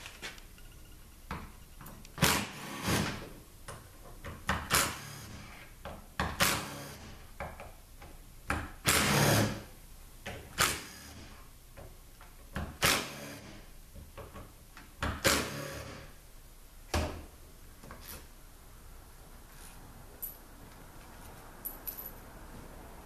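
Metal parts and hand tools knocking and scraping on a steel workbench while a 5L40E transmission valve body is taken apart. There are about nine irregular clunks and scrapes, with a longer scrape about nine seconds in, then only a few faint ticks.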